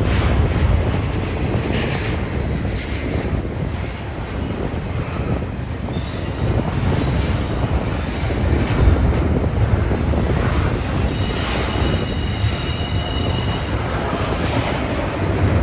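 Intermodal freight train's container cars rolling past with a steady heavy rumble, their steel wheels squealing on the rail in thin high tones about six seconds in and again for a few seconds near the end.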